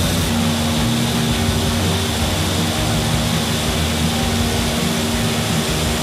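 Vertical wind tunnel for indoor skydiving running: its fans push a steady, loud rush of air with a constant hum.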